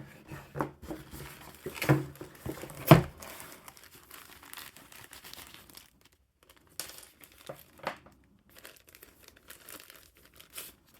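Packaging being handled: crinkling and tearing of plastic or paper, with a few sharp knocks in the first three seconds, the loudest near three seconds in. It then turns quieter, with scattered small rustles and clicks.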